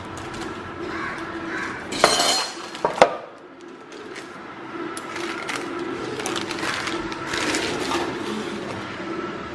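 Parchment paper crinkling and a metal loaf pan knocking, with a loud burst and a couple of sharp knocks about two to three seconds in, then softer rustling as the paper lining is peeled off a baked loaf cake.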